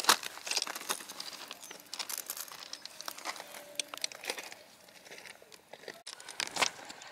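Irregular crackling and clicking, loudest just after the start and again about six and a half seconds in.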